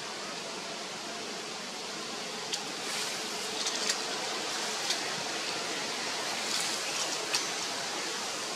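Steady outdoor background hiss, with a few brief high-pitched ticks or chirps between about two and a half and five seconds in and once more near the end.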